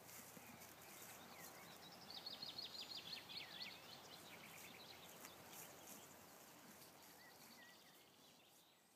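Faint open-field ambience with small birds singing, including a quick run of high chirps about two seconds in; it fades out near the end.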